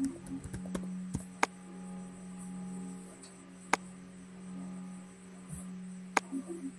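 A steady low hum with a few sharp clicks at irregular intervals.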